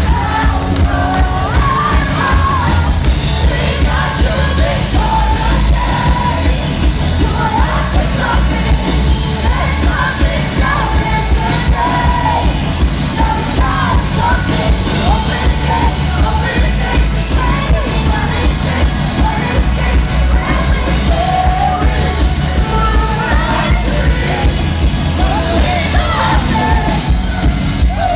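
Pop-rock band playing live at full volume: a woman singing lead into a microphone over drums, bass and electric guitar, with a heavy bass and kick-drum low end, heard from within the audience.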